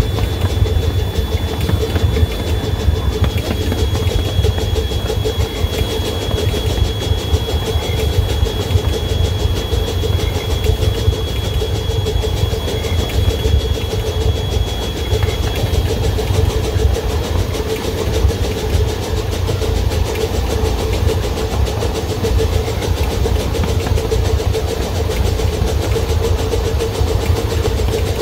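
Locomotive running steadily while pulling a train along the track, its engine sound mixed with the low rumble of the wheels on the rails. A thin, steady high whine runs along with it and stops about halfway through.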